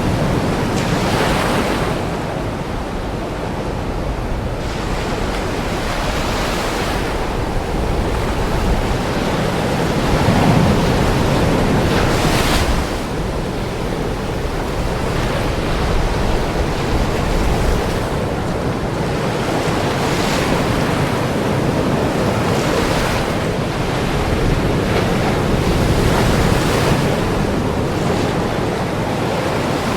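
Ocean waves breaking on a shore, a continuous rushing surf with a fresh surge of breaking water every few seconds.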